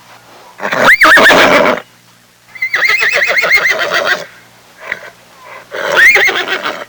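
A horse whinnying three times; the middle, longest call has a quick, wavering trill in pitch.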